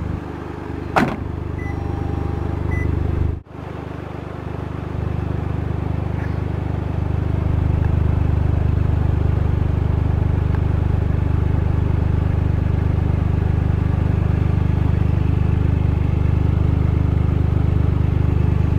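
Toyota GR Yaris's 1.6-litre turbocharged three-cylinder engine idling steadily, louder from about seven or eight seconds in. A click comes about a second in, and a sharp thump as the car door is shut about three and a half seconds in.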